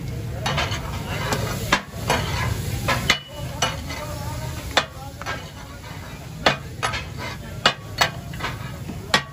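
Metal spatula clanking and scraping on a large flat tawa griddle as fish katakat is chopped and stirred, with irregular sharp clacks over a steady sizzle of frying.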